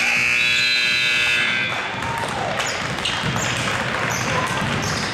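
Gymnasium scoreboard buzzer sounding for about a second and a half, ending the period, then basketballs bouncing and voices in the gym.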